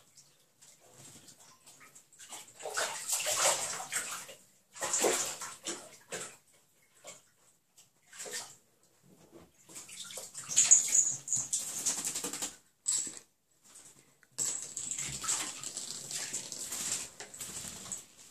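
A bobcat pawing and splashing in shallow bathtub water, in several separate bursts of a second or more, mixed with the bobcats' own animal noises.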